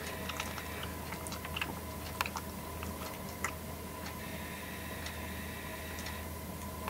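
A cat chewing cat grass: a few short, crisp clicks of chewing in the first half, then it stops. A steady low electrical hum runs underneath.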